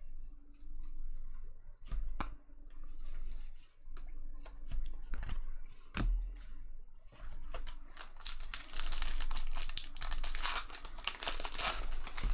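Trading-card packs being torn open and handled: foil wrappers tearing and crinkling, with scattered sharp clicks, the rustling grows denser and louder in the second half.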